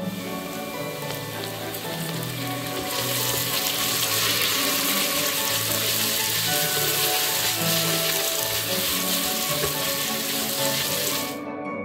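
Chopped onion sizzling as it fries in oil in a pot. The sizzle grows louder about three seconds in, with soft background music.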